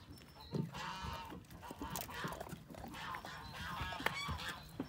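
Bird calls repeated in quick series throughout, with a few sharp clicks and knocks.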